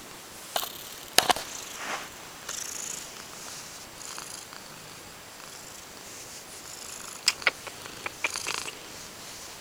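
Domestic cat purring while being stroked, with fur rustling close to the microphone and a few sharp clicks, the loudest about a second in and a cluster about seven seconds in.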